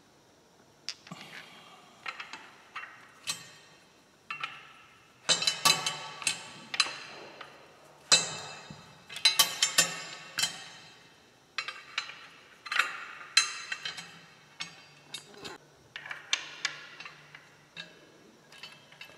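Metal engine-guard hardware (steel crash bar, spacers and bolts) clinking and tapping together as it is fitted to a motorcycle engine: irregular sharp metallic clinks, some with a short ring, in clusters that are busiest from about five to ten seconds in.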